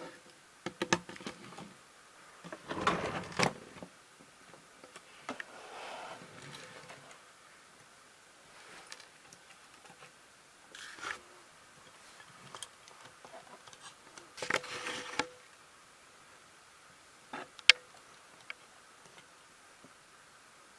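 Handling noises from a small diecast model lorry: scattered clicks and taps with short rustles, the loudest bursts about three seconds in and about fifteen seconds in, and one sharp click near the end.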